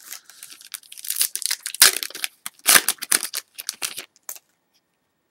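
A trading card pack's wrapper being torn open and crinkled: a run of crackling, tearing rustles that stops about four seconds in.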